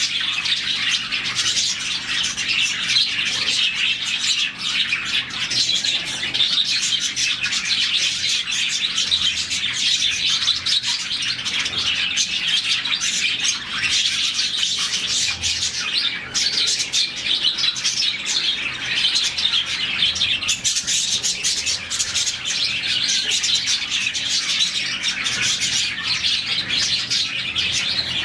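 A colony of about forty budgerigars chirping all at once, a dense, unbroken chatter of many overlapping high chirps and warbles.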